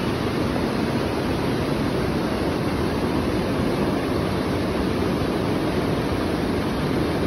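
Fast mountain river water rushing over rocks, a steady loud roar of running water.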